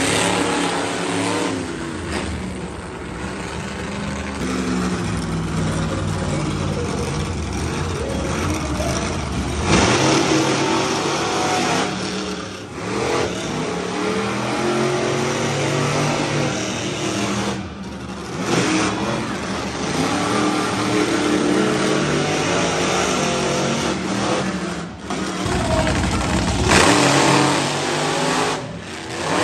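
Monster truck engines revving hard, their pitch rising and falling as the trucks throttle up and back off, with louder throttle bursts about a third of the way in and near the end.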